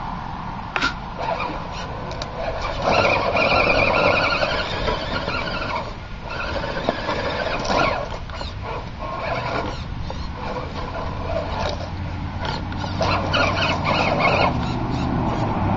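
Electric motor and gears of a scale RC jeep crawler whining as it climbs a dirt bank, the pitch rising and falling with the throttle, with scattered clicks and crackles.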